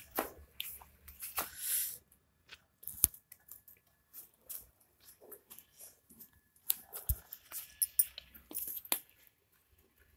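A puppy scuffling and chewing close by: irregular rustles, scratches and clicks, with a few sharp knocks.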